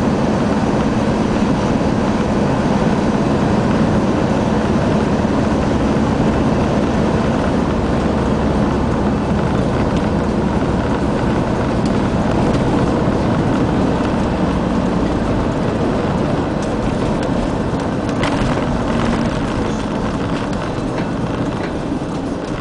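Car cabin noise while driving at motorway speed: steady tyre noise on the road with a low engine hum. It gets a little quieter near the end as the car slows onto an exit road.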